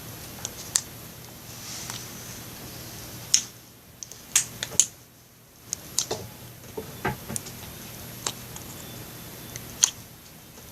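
Slime being squeezed and pressed by hand, giving irregular sharp clicks and small pops with a few squelches.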